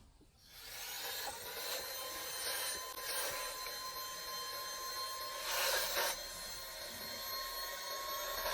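Cordless handheld car vacuum cleaner switching on about half a second in and running with a steady high motor whine over a hiss of rushing air, the hiss swelling louder briefly near the middle and again near the end.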